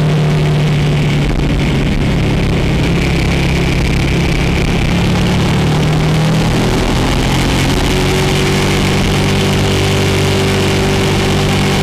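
Motorcycle engine running steadily. Its pitch dips slightly about halfway through, then holds steady.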